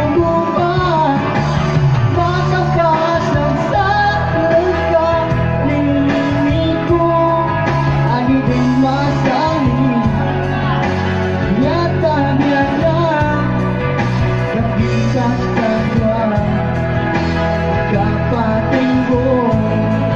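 A man singing into a microphone over amplified electronic keyboard music, at a steady, loud level throughout.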